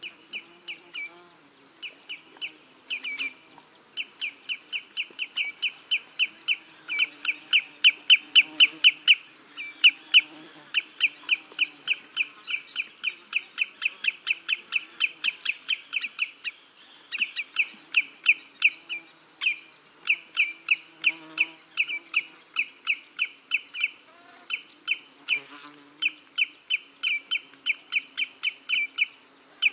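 Common greenshank calling: a long, fast run of short repeated notes, about four a second, broken by brief pauses every few seconds.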